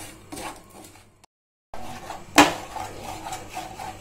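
Spatula scraping and stirring sugar around a dry nonstick kadai as the sugar melts for caramel, with one sharp knock of the spatula against the pan about two and a half seconds in. The sound drops out completely for half a second a little after the first second.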